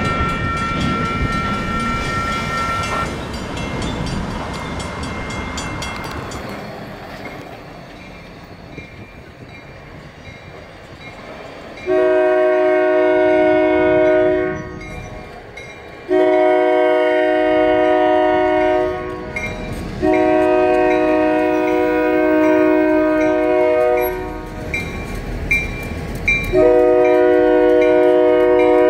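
Diesel locomotive horn sounding four long blasts of a multi-note chord for a grade crossing, starting about twelve seconds in, with a railroad crossing bell dinging steadily underneath. Before that, an earlier horn chord cuts off about three seconds in and the train's rumble dies away.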